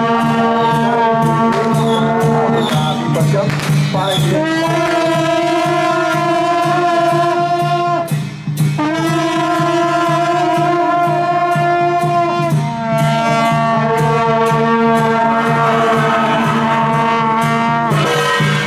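A troupe of long straight brass shaojiao horns blowing long held notes together, shifting pitch several times and breaking off briefly about eight seconds in, over a low steady drone and an even beat.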